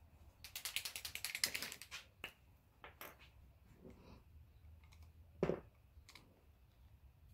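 Correction pen being shaken, its mixing ball rattling in a fast run of clicks, about a dozen a second, for roughly a second and a half. A few light clicks follow, then one knock a little past halfway as the pen is set down on the work surface.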